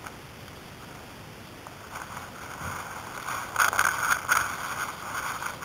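Water lapping and splashing against the side of a small boat's hull in choppy water. It starts about two seconds in and grows louder in irregular surges.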